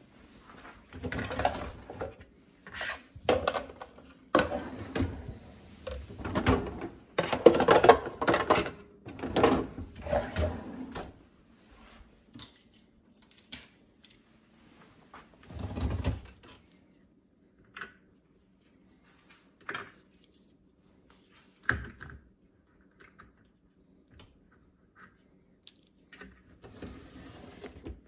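Irregular clatter and knocking of hard objects being handled, dense through the first ten seconds or so, then scattered single clicks and thumps with short gaps between them.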